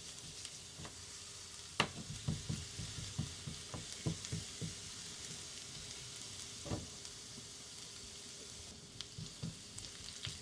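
Minced shallot and garlic frying in oil in a small saucepan: a steady sizzle, with a utensil knocking and scraping against the pan as it is stirred, the sharpest knock about two seconds in.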